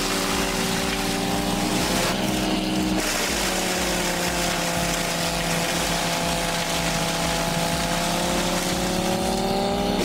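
NHS 450 wood chipper running steadily while brush is fed in, a constant engine-and-rotor hum. Its pitch dips slightly through the middle and rises again near the end.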